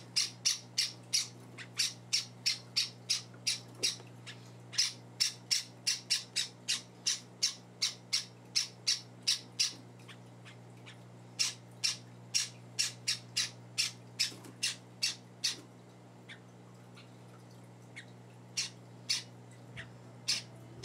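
Java sparrow chicks giving short, sharp, high-pitched calls over and over, two or three a second, with a lull about two-thirds of the way through before the calls pick up again.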